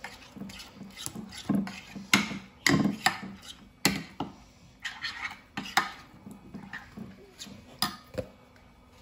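Metal spoon stirring a thick marinade in a glass baking dish, with irregular clinks and scrapes of spoon against glass that thin out near the end.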